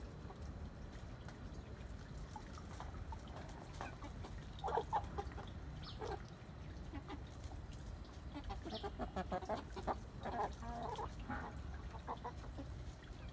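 Chickens clucking while they forage, in short runs of clucks about five seconds in and again from about eight and a half to twelve seconds in, over a low steady rumble.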